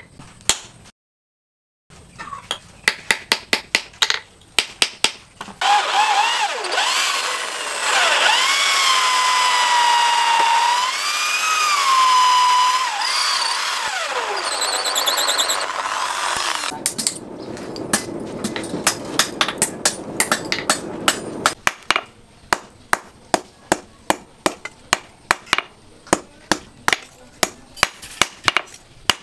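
A hand hammer striking metal on an anvil, then an electric drill boring into a hardwood knife-handle block, its whine dipping and rising in pitch as the bit loads up. Steady hammer blows on metal on the anvil follow, about two a second, near the end.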